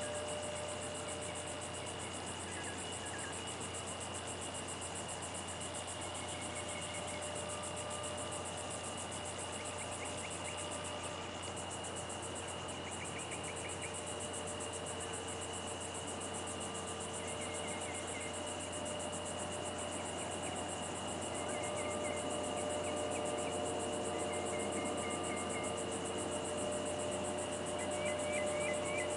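Night insects calling: a steady high drone, with short trains of rapid chirps repeating every few seconds.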